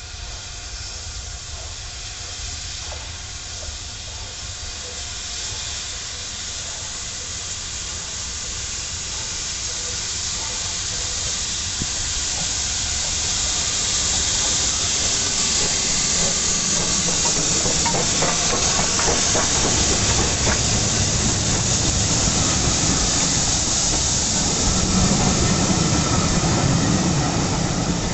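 Steam train approaching: a steady hiss of steam that grows louder throughout, with a lower rumble and a few clicks from the wheels coming in during the second half.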